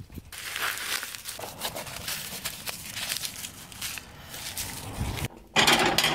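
Crinkling and rustling of a small plastic silica gel packet being handled, with a louder burst of noise near the end.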